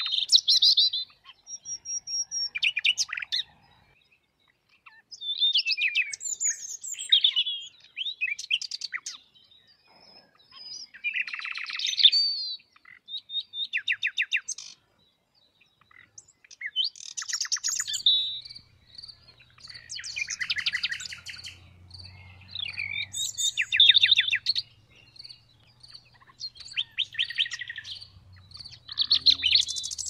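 Common nightingale singing: phrase after phrase, each a second or few long, of rapid repeated notes and trills mixed with clear whistles, with short pauses between phrases.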